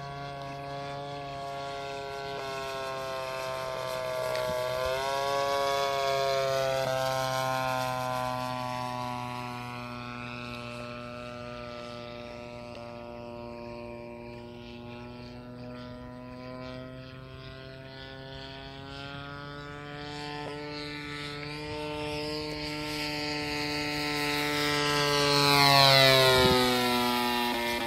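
Giant-scale RC model airplane's single-cylinder two-stroke gas engine and propeller at high throttle as the plane flies around, the note rising and falling in pitch with its manoeuvres. It grows loudest on a close low pass about 26 seconds in, the pitch dropping sharply as it goes by.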